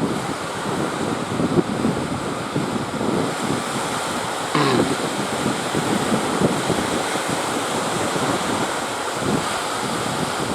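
Sea surf and wind buffeting the microphone: a steady rushing noise with gusty flickers. A brief separate sound stands out about four and a half seconds in.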